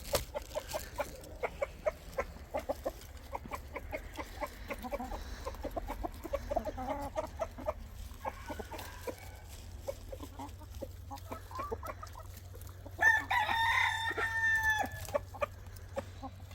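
Backyard chickens clucking, with a rooster crowing once, long and loud, late in the stretch.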